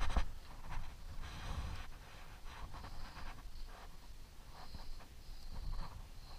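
Rustling, brushing and a few light knocks as bags and gear are handled in a car's open rear cargo area, with low rumble from handling close to the microphone; the knocks are most frequent in the first two seconds.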